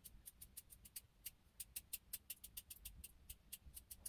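Scissors snipping quickly into the ends of a lock of hair to thin and texture a fringe: a long run of faint, sharp snips, about seven a second.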